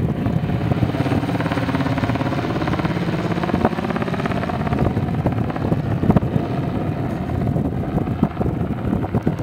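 Twin-turbofan business jet (Cessna Citation 501, Pratt & Whitney Canada JT15D engines) at takeoff power, rolling down the runway and climbing away. A steady loud roar carries a whine that slides in pitch.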